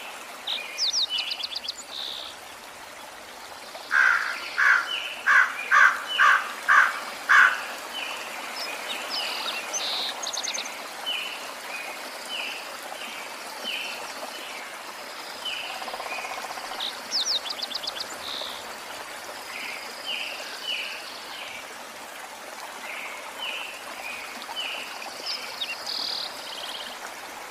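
Several birds chirping and trilling over a steady rushing hiss like flowing water. About four seconds in comes a run of about seven loud, evenly spaced notes, the loudest part; short chirps and quick trills recur throughout.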